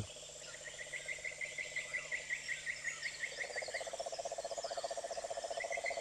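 Frogs and insects calling: a steady series of quick high chirps, about five a second, that pauses for a while and returns near the end, joined from about three seconds in by a lower, very rapid trill.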